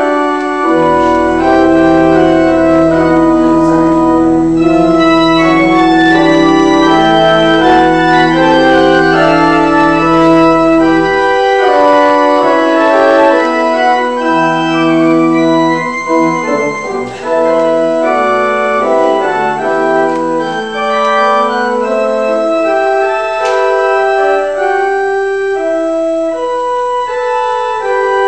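Church organ playing a slow prelude of sustained chords, with a deep bass note held beneath for roughly the first eleven seconds before the texture thins out.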